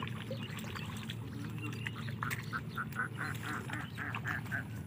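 Animal calls: a rapid run of about ten short calls, roughly four a second, in the second half, over a steady low hum.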